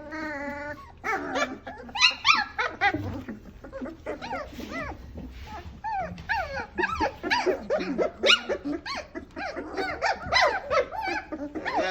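A litter of three-week-old griffon puppies squealing, whining and yipping, with many short high cries overlapping one another. A longer held whine comes at the very start.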